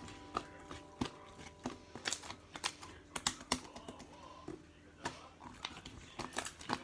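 Irregular keystrokes typed on a computer keyboard, several clicks a second. Faint sustained music tones fade out in the first second and a half.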